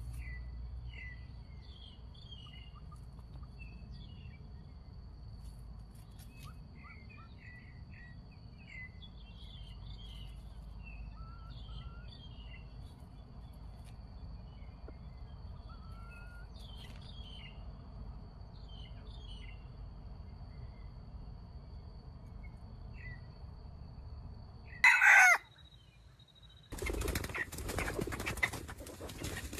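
Outdoor background of scattered small-bird chirps and a steady high insect-like whine. About 25 seconds in, a wild jungle chicken gives a short, loud call that falls in pitch. After a brief pause comes a long stretch of loud wing flapping and scuffling.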